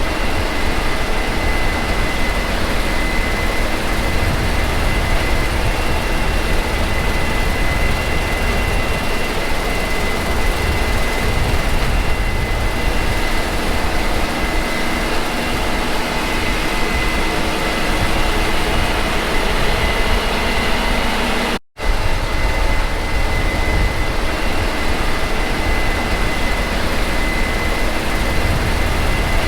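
Combine harvester running steadily in the field: a constant engine drone with a steady high whine over it. The sound cuts out for a moment about 22 seconds in, then carries on the same.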